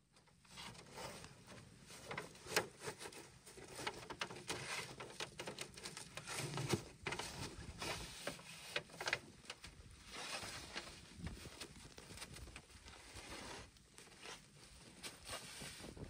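A long wooden pole dragged and rubbed through packed snow: irregular crunching and scraping crackles, with a few sharper knocks.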